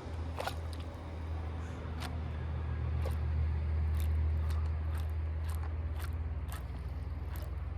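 A small boat motor running steadily with a low hum that swells a little in the middle and eases near the end, with scattered light ticks over it.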